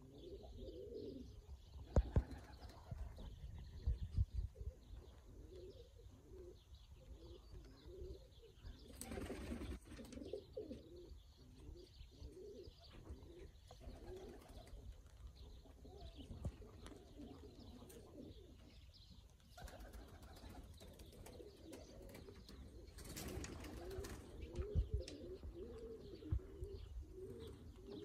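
Pigeons cooing over and over in low, rolling phrases. There are a few low thumps around two and four seconds in, and a brief rushing noise twice, about nine seconds in and again past the three-quarter mark.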